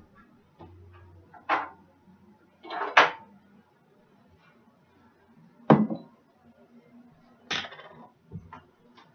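Kitchen items being handled and set down: a string of separate sharp knocks and clatters, with a longer rattle about three seconds in and further knocks near six and seven and a half seconds.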